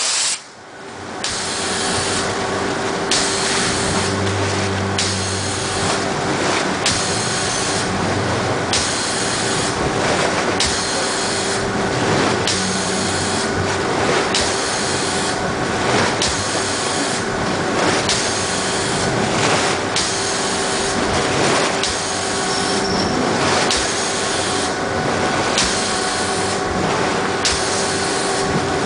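Pulsair air-mixing probe firing pulses of compressed air into fermenting red wine must, a burst of bubbling and splashing about once a second over a steady hum, as it breaks up and wets the grape-skin cap.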